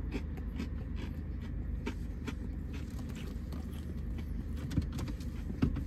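Mouth-close chewing of a crispy breaded fried-chicken burger: a scatter of small crunching clicks, over a steady low hum inside the car cabin.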